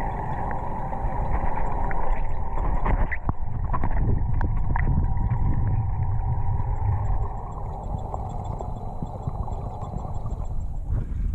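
Underwater pool sound picked up by a camera below the surface: a steady low rumble with a constant hum, and a scatter of small clicks and gurgles a few seconds in, easing off a little after the midpoint.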